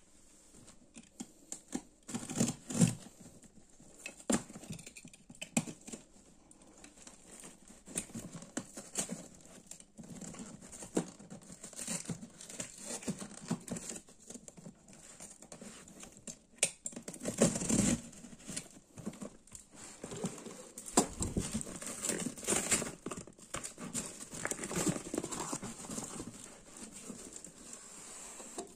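Plastic wrap on a cardboard box crinkling and tearing as it is cut open with scissors, with irregular scratches, snips and knocks of the cardboard.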